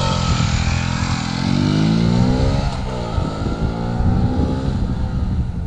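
Mondial HPS 125 single-cylinder four-stroke motorcycle accelerating hard from a standing start. The revs climb, drop at an upshift about three seconds in, climb again, then fade as the bike pulls away.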